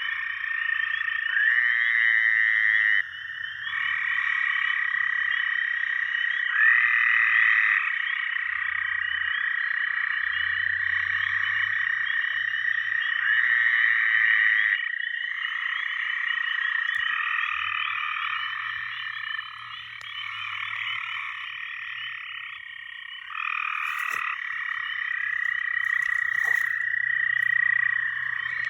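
A chorus of many frogs calling at once: a steady high trilling with overlapping croaks, and louder individual calls standing out every few seconds.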